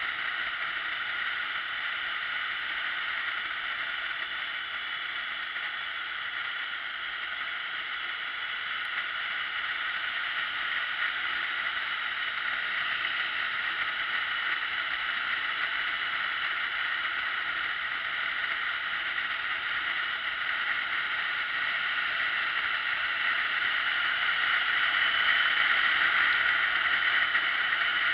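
Steady rushing noise of a motorcycle riding at road speed, wind and engine heard from a camera mounted on the bike behind the windscreen. It grows somewhat louder near the end.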